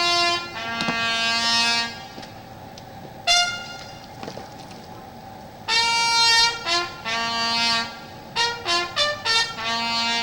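Military bugle call: a lone brass bugle sounds phrases of long held notes and quick short ones on its few open notes, with pauses between the phrases and a run of rapid short notes near the end.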